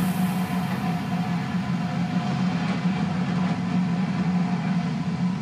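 Falcon 9 first stage's nine Merlin engines running at full power during ascent: a steady, deep noise heavy in the low end, its highest hiss fading about a second in.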